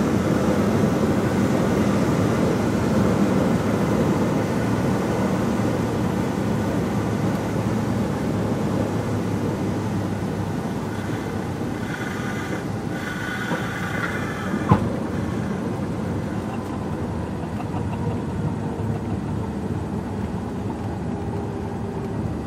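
Cabin noise of a single-engine Cessna landing: steady engine and propeller noise that slowly eases off as the throttle comes back. Partway through a brief higher tone sounds, then a single sharp knock as the wheels touch the runway.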